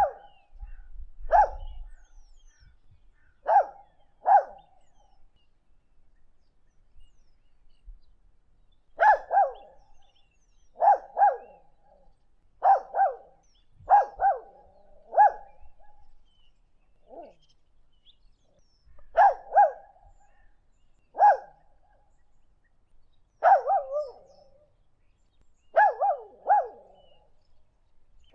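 A dog barking over and over in short barks, singly and in quick pairs, with a pause of about four seconds after the first few barks.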